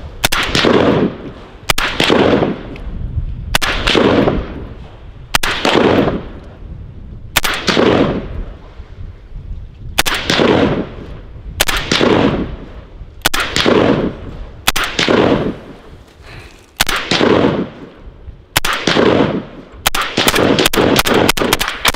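FN SCAR rifle firing single shots about every one and a half to two seconds, each followed by a long echo rolling off the surrounding mountains and glacier. About two seconds before the end the shots come in a fast string.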